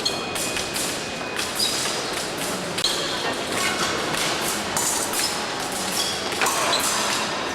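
Épée fencing: feet thudding and stamping on the piste, with steel blades clashing and giving short metallic rings.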